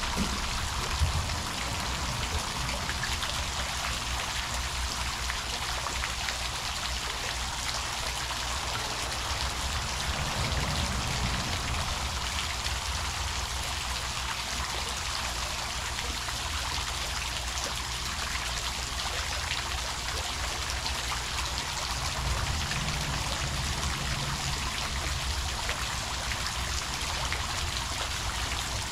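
Water spraying from a fountain and falling back as a steady splash and patter of droplets.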